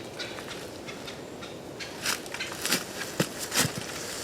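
Rustling and crackling in brush and dry leaves, starting about two seconds in: footsteps and a shot hog being dragged out of cover.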